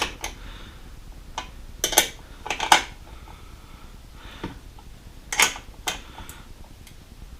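Scattered metal clicks and short scrapes from a hand tool working a metal license plate bolt during a fine adjustment, about eight separate small strikes.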